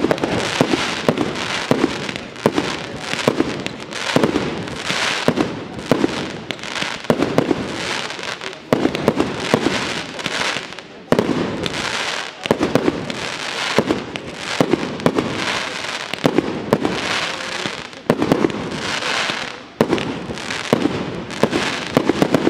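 Fireworks display: aerial shells bursting one after another in sharp bangs, several close together at times, over a continuous crackling hiss.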